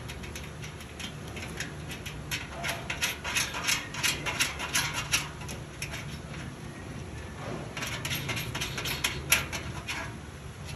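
Quick light clicks and taps of metal parts being handled as a drawer front is fitted onto a steel filing-cabinet drawer, in two bursts with one sharper click near the end. A steady low hum runs underneath.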